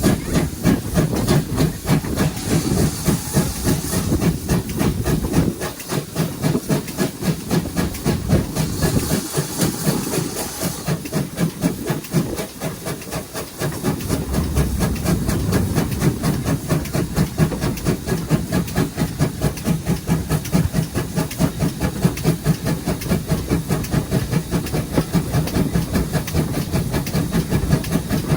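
GWR 5700-class 0-6-0 pannier tank steam locomotive working under steam: rapid rhythmic exhaust beats over a steady steam hiss, with louder bursts of high hiss twice early on. The beats ease off briefly about halfway, then pick up again.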